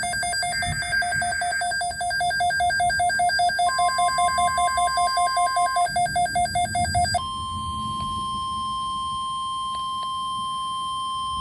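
NOAA Weather Radio receiver sounding an emergency alert: a rapid pulsing alarm beep, about five pulses a second, for about seven seconds. Then the steady warning alarm tone runs on alone, the signal that an alert broadcast is about to follow.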